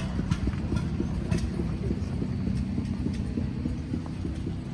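Grey Ferguson TE20 tractor's diesel engine idling steadily, a rapid low chugging.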